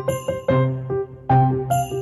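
Background music: a bright, bell-like melody of separate notes over a low bass note.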